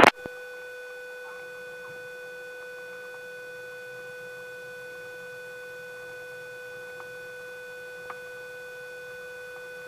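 A steady electronic tone pitched near 500 Hz with fainter higher overtones, heard on the aircraft's radio audio feed, with two faint clicks near the end.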